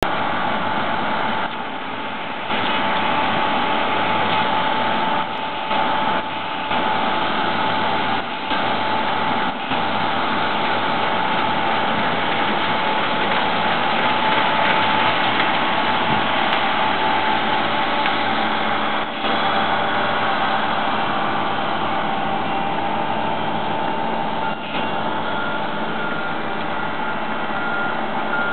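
Laverda AL Quattro combine harvester running while cutting and threshing wheat: a steady machine drone with a steady whine over it, dipping briefly a few times.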